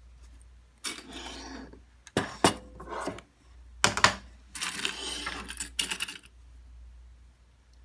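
Quilted fabric and binding being handled and pushed into place: bursts of rustling with a few sharp clicks of small hard objects.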